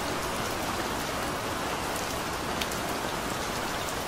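Steady rain falling, an even hiss with a few distinct drops standing out.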